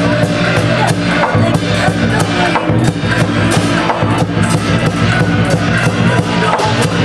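Music with a steady drumbeat, about two or three strikes a second, over sustained low tones.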